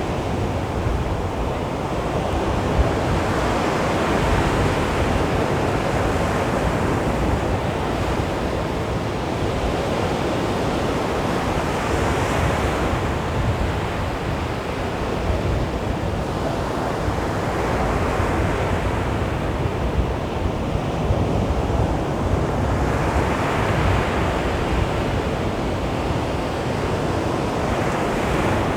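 Sea waves breaking on a beach, the surf rising and falling in slow swells every few seconds.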